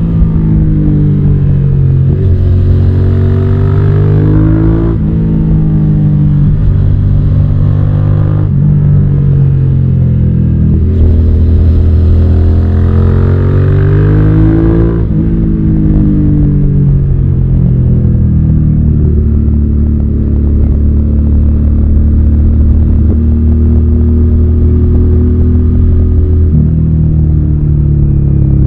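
Suzuki SV650's 645 cc V-twin engine pulling hard through several gears: the revs rise, each climb is cut short by a shift, and then the pitch climbs again. About halfway through the revs fall away, and the engine settles to a steady, even cruise.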